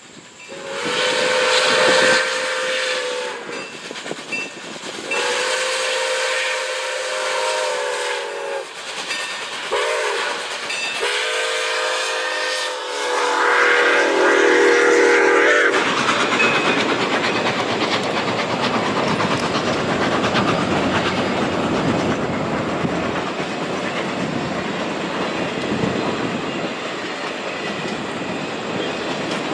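Milwaukee Road steam locomotive's whistle sounding long, long, short, long, the grade-crossing signal. Then its passenger cars roll past with a steady clickety-clack of wheels on rail joints.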